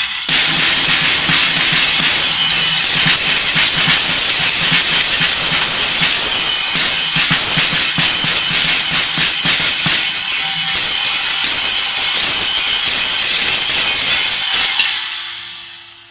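Drum kit played with a splash cymbal that has a thin decorative metal plate stacked on top, giving each hit a short, trashy, hissing crash: a trash-can stack sound over a splash. The cymbal wash dies away near the end.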